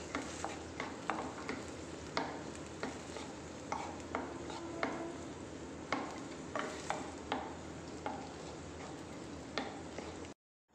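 Spatula scraping and tapping against a nonstick pan as dry sago pearls are stirred and roasted in a little ghee, in irregular strokes over a steady sizzle. It cuts off suddenly near the end.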